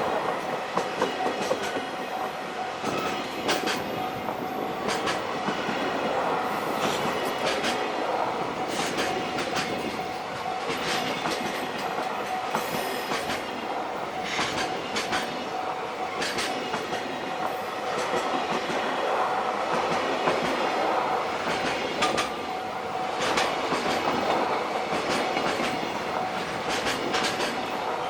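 A long container freight train passing at speed. Its wagons' wheels clack over the rail joints again and again, over a continuous rumble of running gear.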